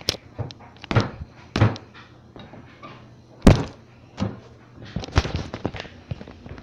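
A series of sharp knocks and thumps from household things being bumped and moved during a search, the loudest about three and a half seconds in.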